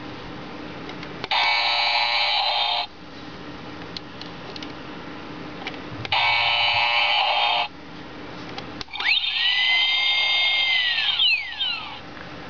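Robot Chicken electronic action figure playing sound effects through its small built-in speaker, triggered by pressing its chest button. There are two short buzzy electronic bursts of about a second and a half each, then a longer effect of tones sweeping up and down near the end.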